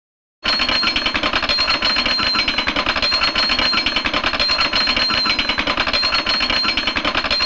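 Old cartoon sound effect: a rapid, even mechanical rattle with a steady high ringing tone over it. It starts about half a second in, runs for several seconds and cuts off suddenly near the end.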